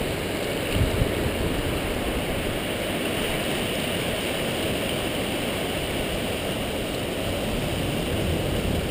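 Floodwater of a swollen river gushing past a rock wall: a steady rushing noise.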